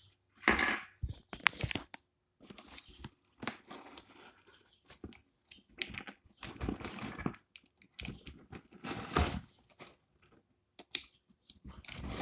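Coin-operated fidget-toy vending machine being worked: a loud clunk about half a second in, then a string of clicks and scraping rattles as a quarter goes in and the dial is twisted round.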